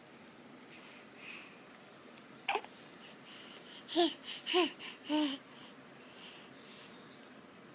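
Hiccups, each a short voiced squeak that rises and falls in pitch: one faint hiccup about two and a half seconds in, then three louder ones in quick succession, about half a second apart.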